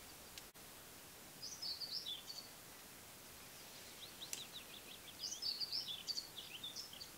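A small songbird singing in quick, high, chirping phrases: one short burst of song about one and a half seconds in, then a longer run from about four seconds to near the end, over faint outdoor background hiss.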